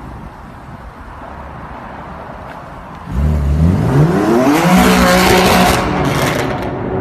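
BMW car engine rumbling low, then about three seconds in revving hard: a sharp climb in pitch, held at high revs with a loud hiss, easing off near the end.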